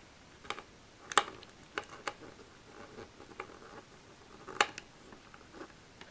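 A small screwdriver driving a screw with its ferrule into a floppy disk drive's metal chassis: a few scattered clicks of metal on metal.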